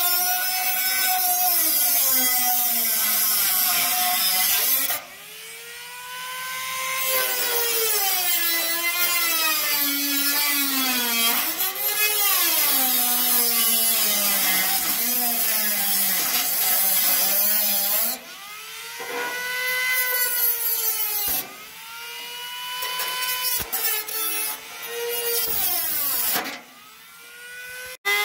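Small handheld rotary tool cutting through a plastic lawnmower hood: a high whine that sags and rises in pitch as the bit bogs in the plastic. Several times it lets off, winds down and spins back up.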